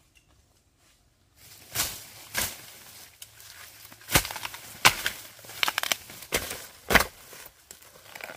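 Irregular sharp knocks and crunches, about a dozen over several seconds with rustling between them, starting about a second and a half in.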